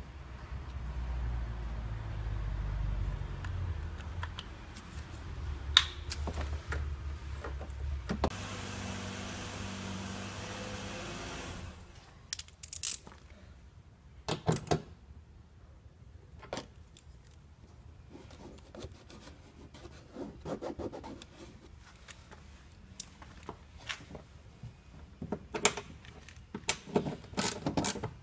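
Hands handling plastic parts, a rubber plug and wiring connectors inside a stripped Nissan Murano Z51 front door: scattered clicks, taps and rattles. A low rumble runs through the first several seconds, and a steady whir lasts about three seconds near the middle.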